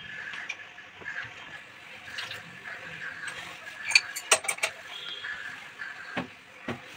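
A metal wrench and fitting clink against a small water-inlet valve as it is worked onto a wall water pipe. A quick run of sharp metallic clicks comes about four seconds in, and one more near the end.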